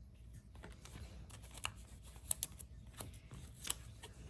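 Trading cards being handled and flipped through one by one, with soft sliding and scattered light clicks of card stock, a few sharper clicks in the second half.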